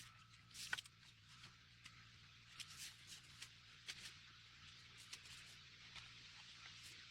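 Faint rustling with scattered light clicks and snaps over a steady high hiss.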